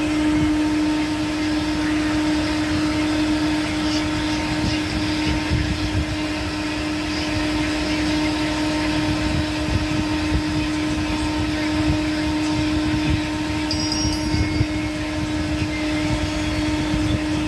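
Steady machine hum holding one constant tone, over a continuous background rush of noise.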